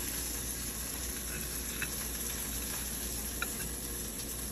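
Steady sizzle of oil in a hot skillet, with a couple of faint clicks in the middle.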